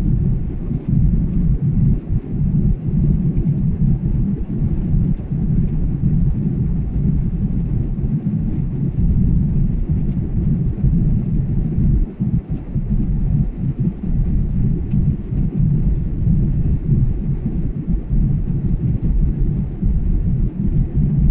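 Steady low rumble of a jet airliner's engines and airflow heard inside the passenger cabin in flight.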